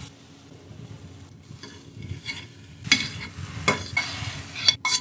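A metal fork stirring and scraping a sticky sunflower-lecithin mixture around a hot stainless steel frying pan, over faint sizzling. Light scrapes at first, then several sharper metal-on-metal scrapes and clinks with a brief ring in the second half.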